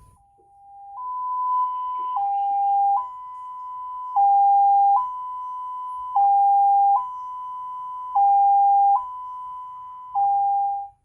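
Ambulance siren sounding a two-tone high-low pattern, switching between a higher and a lower tone about once a second. It swells in over the first second and stops abruptly near the end. This siren mode signals an ambulance on an evacuation run or on its way to pick up a patient, with no patient aboard.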